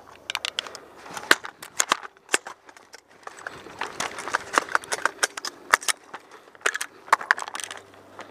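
AR-style carbine being worked to clear a complex malfunction: a rapid, irregular run of sharp metallic clicks and clacks as the action is racked and the rifle handled.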